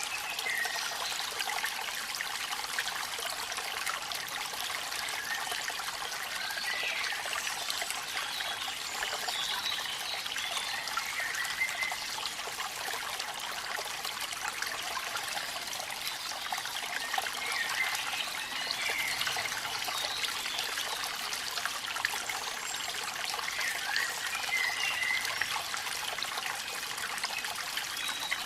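Waterfall in the rain: a steady, unbroken rush of falling water.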